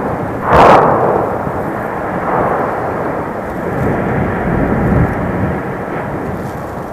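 Fogo volcano erupting: a sharp explosive blast about half a second in, the loudest moment, decaying into a continuous rumbling roar that swells and eases a couple of times.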